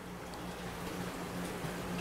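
Room tone: a steady low hum under a faint even hiss, with no distinct events.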